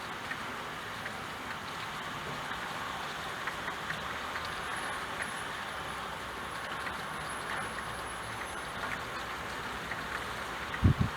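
Steady rain with scattered ticks of individual drops. Near the end a short, low double thump is the loudest sound.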